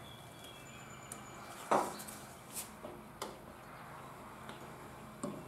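Hands working a drive belt onto the pulleys of a walk-behind mower: low handling noise with one sharp knock about two seconds in and a couple of lighter clicks after it.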